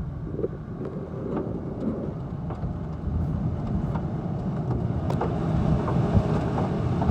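Hailstorm: a steady rush of wind and falling hail and rain, with scattered sharp ticks of hailstones striking hard surfaces. The ticks come more often toward the end.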